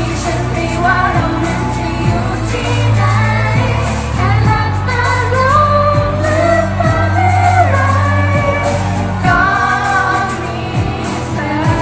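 A singer performing a Thai pop song over backing music with a steady bass line and a drum beat of about one stroke a second.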